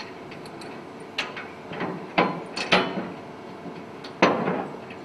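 Sharp metallic knocks and clanks from the latch and fittings of a freight wagon's steel side door being worked by hand, about half a dozen in uneven succession, the last one about four seconds in the loudest.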